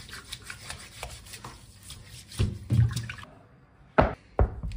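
Steel-wool pad scrubbing a pork hock in a sink of water: quick repeated scrubbing strokes with splashing. Near the end, two sharp knocks about half a second apart.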